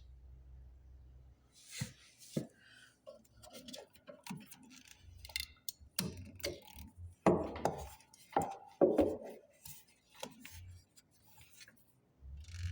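Irregular clicks and knocks of hard objects being handled, some with a short ringing, the loudest about seven and nine seconds in.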